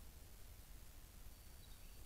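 Near silence: steady hiss and low rumble from the trail camera's microphone, with one faint, thin high note held for about half a second near the end.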